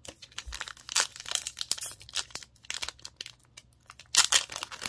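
Foil wrapper of a Pokémon booster pack crinkling and tearing as it is opened by hand: a run of sharp crackles, loudest about a second in and again near the end.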